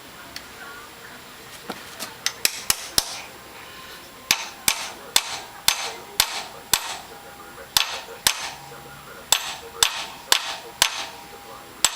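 Hammer tapping a screwdriver bit in an extension into a seized crosshead screw on a Suzuki motorcycle clutch case, sharp metallic taps in short runs with brief pauses. The taps keep the bit seated while it is turned to free a tight, decades-old screw.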